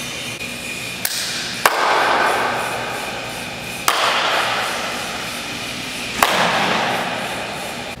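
Four sharp hand claps, the first softer, each followed by a long reverberant wash that takes about two seconds to die away: the booming echo of an ice arena before acoustic panels are installed.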